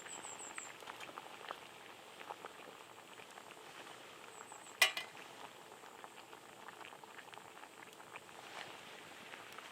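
Shabu-shabu broth bubbling at a simmer in a pot, a soft hiss full of small pops. A little under halfway through comes one sharp clink, the loudest sound.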